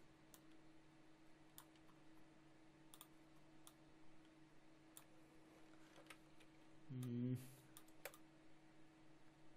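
Faint computer mouse clicks, scattered about once a second, over a low steady electrical hum, with a brief wordless vocal sound about seven seconds in.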